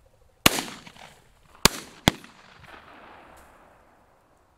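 Three shotgun shots from over-and-under shotguns at a pheasant, one about half a second in and two close together about a second later, each echoing away.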